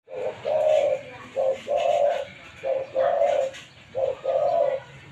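Spotted dove cooing: a short coo followed at once by a longer one, the phrase repeated four times at an even pace.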